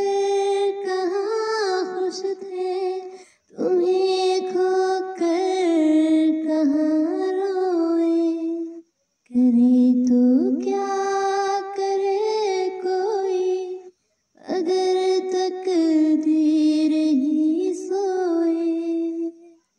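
A woman singing a Hindi song unaccompanied into a handheld microphone, in four long phrases with short pauses for breath between them, her voice sliding and turning on held notes.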